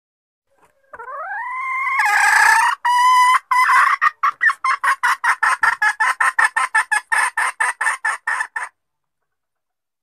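Jungle fowl hen calling: a drawn-out note that rises in pitch, a louder held call, then a fast run of short clucks, about five a second, that stops abruptly. It is a hen call used as a lure to draw in wild jungle fowl roosters.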